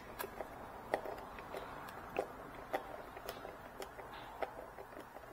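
Light, irregular clicks and ticks, roughly two a second, from a hand-held Torx screwdriver working a motorcycle windscreen's fixing bolt loose.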